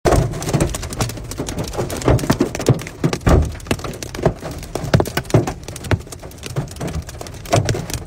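Hail pelting a car's roof and windshield, heard from inside the cabin: a dense, irregular clatter of hard hits with heavier thuds among them.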